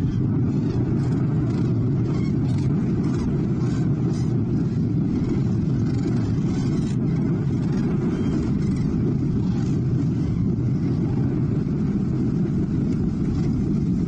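A John Deere farm tractor's diesel engine running steadily at close range as it drives slowly across the field, a low, even rumble. In the first few seconds common cranes call faintly over it.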